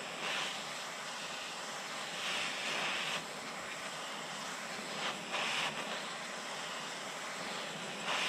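Handheld Bernzomatic torch flame hissing steadily as it heats a U-joint cap in a drive shaft yoke, melting out the injected plastic retainer. The hiss grows louder briefly a few times.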